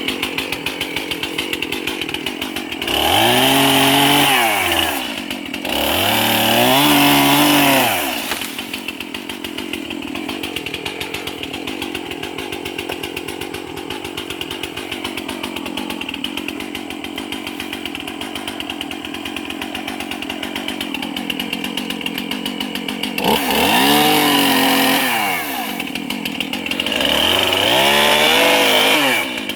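Two-stroke chainsaw with a freshly sharpened chain, running at idle with a fast, even firing pulse. It is throttled up four times in two pairs, each time for about two seconds, the engine pitch rising and then falling back to idle.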